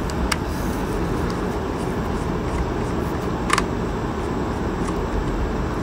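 Steady background hum, with a faint click just after the start and a clearer small click about three and a half seconds in as a small screwdriver turns out the metal pivot screw of a hair straightener.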